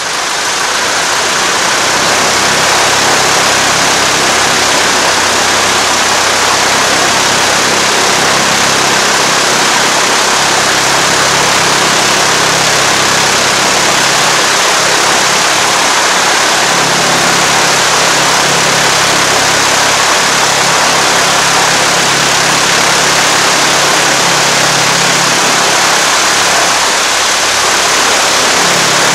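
Beechcraft Musketeer's four-cylinder piston engine running steadily with the cowling off and the propeller turning, just after starting. This is a test run to check the repaired vacuum pump drive coupling and the cleaned starter.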